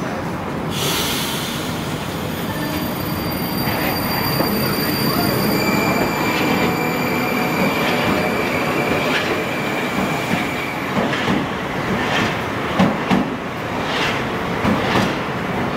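A Moscow Metro 81-765 "Moskva" electric train running along the platform, a continuous rumble with a steady high whine through the middle seconds. In the last few seconds the wheels clack over the rail joints several times.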